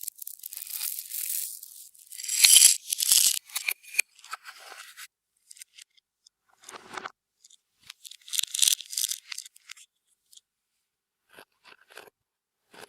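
Slime being kneaded and stretched by hand: irregular bursts of sticky crackling and squishing. The bursts are loudest about two to three and a half seconds in and again near nine seconds, with softer sticky clicks between.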